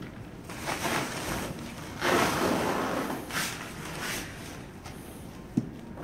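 Rustling and handling noise as denim jeans are pulled up over a pair of mannequin legs, loudest for about a second midway, with a single sharp knock near the end.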